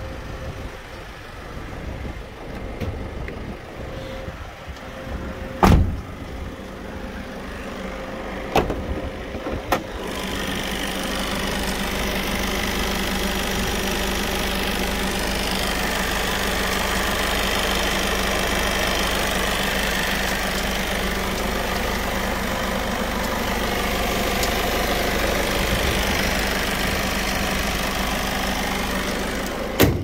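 Citroën Jumper van's diesel engine idling steadily, heard up close through the open engine bay and louder from about ten seconds in. Before that there is a heavy thump about six seconds in and two sharp clicks. A bang comes near the end as the bonnet shuts, and the engine sound is muffled after it.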